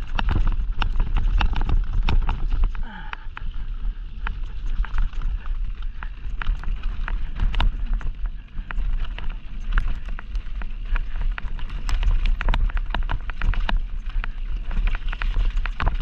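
Downhill mountain bike ridden fast down a dirt trail: the tyres rumble over the ground while the chain and frame rattle, giving frequent sharp clicks and knocks, with a heavy low rumble of wind buffeting the camera microphone.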